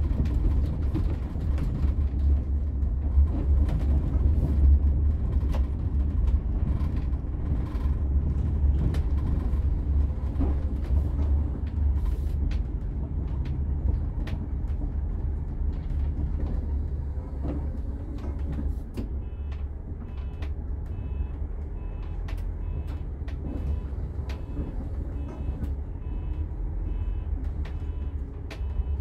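Cabin of a Setra S 416 UL business coach under way: a steady low engine and road rumble with scattered creaks and rattles from the interior fittings. From about two-thirds of the way in, a faint high beep repeats about once a second.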